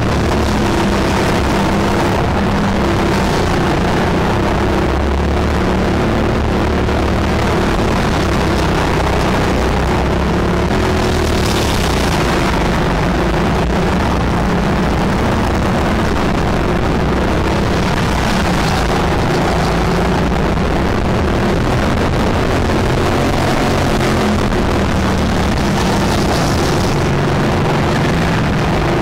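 Go-kart engine running hard, recorded onboard the kart: a loud, steady engine sound with small rises and falls in pitch as the kart brakes and accelerates through corners.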